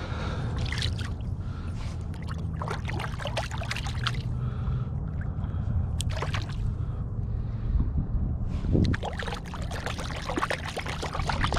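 Shallow river water splashing and trickling in irregular little bursts as a hand rinses a freshly cleaned bluegill in it, over a steady low rumble.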